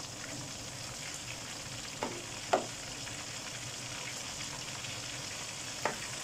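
Whole flying fish deep-frying in a wok of oil, with a steady sizzle, and a slotted metal skimmer knocking against the wok three times: twice around the middle and once near the end.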